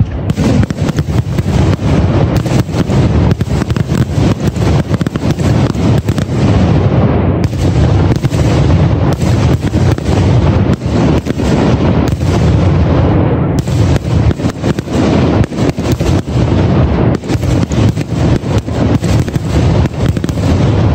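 Aerial fireworks finale: shells bursting in rapid succession, a dense barrage of booms and bangs with no pause.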